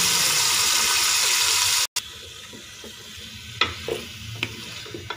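Loud sizzling as a wet onion, garlic and ginger paste hits hot oil and browned chicken in a metal pot; it cuts off suddenly about two seconds in. Then a quieter sizzle with a few sharp knocks of a wooden spoon against the pot as it is stirred.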